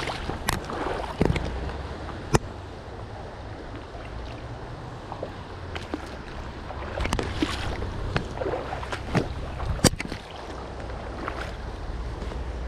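Shallow, rocky stream running, with splashes and scattered sharp knocks and clicks from wading among the stones.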